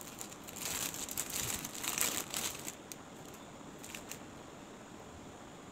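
Crinkling of a craft kit's plastic packaging and sticker sheets as they are handled, strongest from about half a second to three seconds in, followed by a couple of light clicks.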